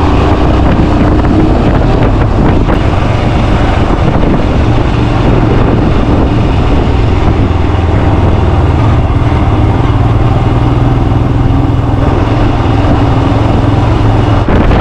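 Royal Enfield motorcycle engine running steadily while riding, heard from a chest-mounted camera, with small rises and falls in pitch as the throttle changes.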